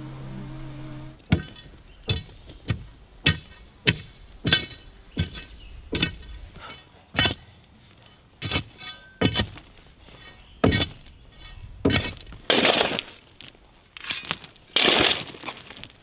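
A metal shovel blade striking hard into rocky gravel at the bottom of a footer trench, sharp clinks about every 0.6 s that slow and space out later. Near the end come two longer scrapes of dirt and stones. A buzzing insect is heard for about the first second.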